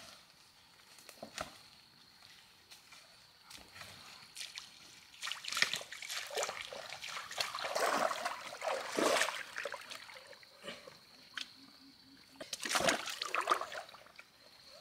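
Splashing and sloshing in shallow, muddy pond water as large fish are caught by hand and handled in a plastic basin. It comes in irregular bursts, busiest in the middle of the stretch, with a shorter burst near the end.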